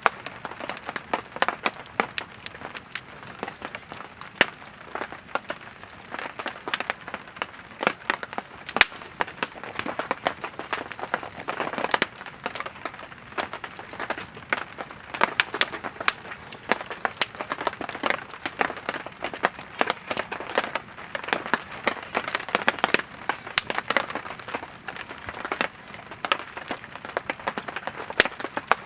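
Burning firewood in a campfire, crackling and popping continuously with a soft hiss of flames underneath.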